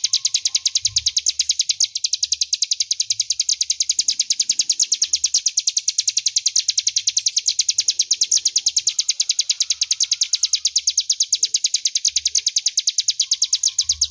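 Ciblek gunung (a prinia) singing: one long, fast, high rattle of evenly repeated notes, about seven a second, clear and loud, stopping suddenly at the end.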